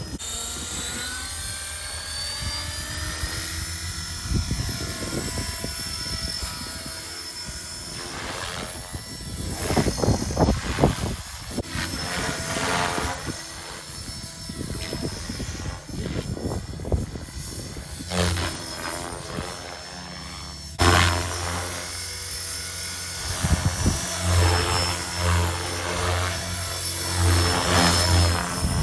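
Align T-Rex 470 electric RC helicopter running, its motor and rotor whine rising in pitch over the first few seconds and then holding steady. Stretches of louder, rougher rotor noise come and go through the middle and the latter part.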